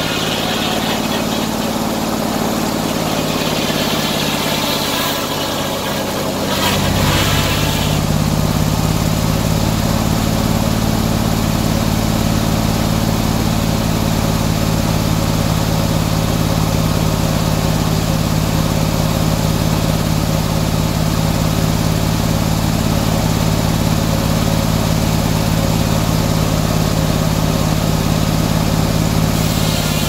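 Antique circular sawmill running: the large circular blade sawing a pine log over the steady drone of the mill's power unit. About seven seconds in the sound deepens and grows a little louder.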